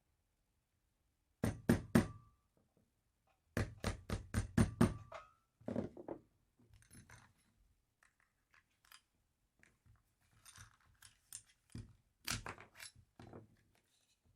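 Sharp metallic clicks and clinks of airsoft 1911 pistol parts being handled and fitted: three quick clicks about a second and a half in, a faster run of about seven around four seconds in with a brief ringing note, then soft rustling and another cluster of clicks near the end.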